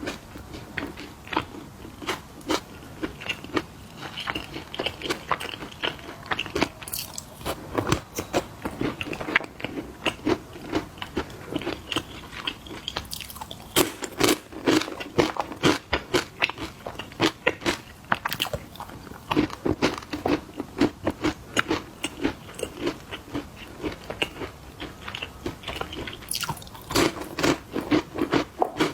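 Close-miked crunching and chewing of crunchy snacks: a steady run of irregular crisp crunches, several a second, with heavier clusters of bites every few seconds.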